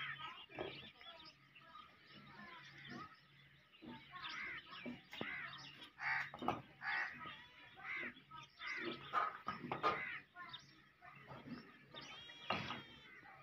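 Many birds chirping and calling, short arched calls following one another in quick succession.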